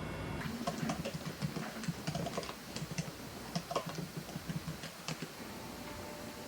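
Typing on a computer keyboard: quick, irregular key clicks that thin out after about five seconds.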